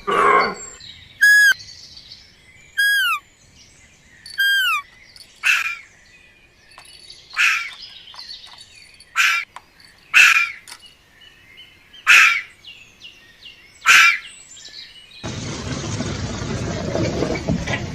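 A series of short, high animal chirps: first three falling whistle-like chirps, then sharper chirps every second or two. Near the end a steady rushing noise takes over.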